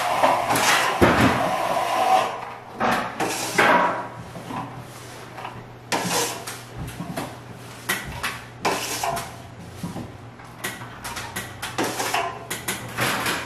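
Steel plastering trowel scraping and knocking against a plaster-loaded hawk and scraping across the wall as a second coat of wet plaster is worked on, in short irregular strokes. A faint steady low hum runs underneath.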